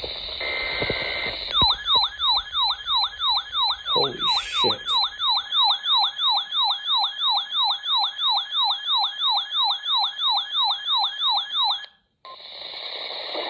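Emergency alert receiver's electronic siren alarm going off for a Tsunami Warning test. After a short beep over radio hiss, a falling whoop repeats about three times a second for roughly ten seconds and then cuts off abruptly, and the hiss returns.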